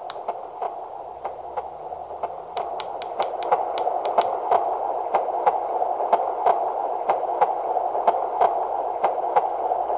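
Sound box of a Zazu Dex soothing plush toy playing one of its sleep sounds: a steady whooshing noise with scattered sharp clicks, getting louder over the first few seconds as the volume is turned up.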